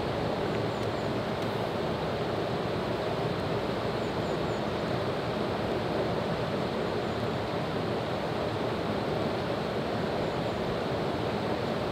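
Steady rushing of a waterfall.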